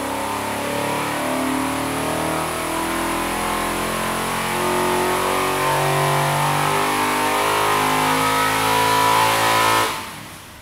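Small-bore, long-stroke, low-deck 440 Mopar big-block V8 running hard on an engine dynamometer. It grows steadily louder, then cuts off abruptly near the end.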